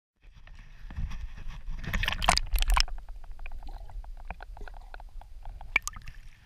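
Water splashing and gurgling around an action camera dunked under the lake surface beside a canoe, heard muffled through the waterproof housing: low rumbling with many small clicks, the heaviest splashing about two seconds in.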